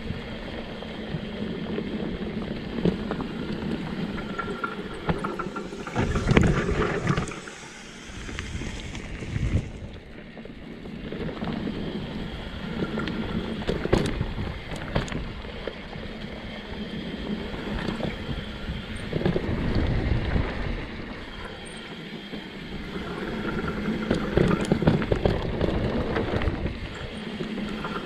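Mountain bike ridden fast down a dirt trail: tyres rolling over the dirt with a continuous rushing noise, and the bike's frame, chain and suspension rattling, with sharp knocks over bumps. The noise swells and falls as the speed and the terrain change.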